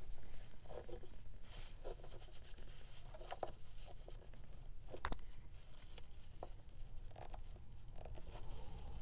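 Pliers squeezing a metal book corner onto the edge of a folio cover: scattered faint rustles and scrapes of handling, with one sharp click about five seconds in.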